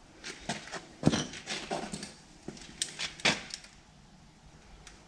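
Handling noises: a quick run of clicks, knocks and light rattles, the loudest a thump about a second in and another sharp knock a little past three seconds.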